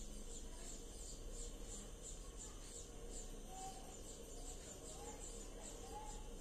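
Faint ambient insect chirping: a high pulse repeating steadily about three times a second, with a few soft short whistled notes in the middle.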